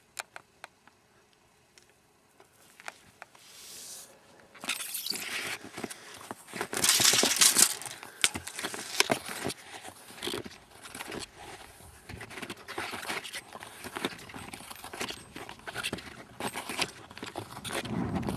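Snowshoe footsteps crunching through deep fresh snow. They start a few seconds in as a steady run of steps, with a louder crunching stretch early on.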